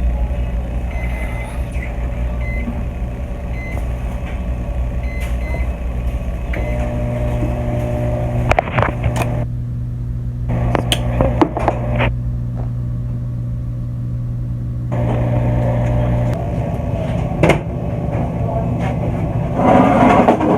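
Microwave oven running with a steady low hum, with a few clicks and knocks about halfway through.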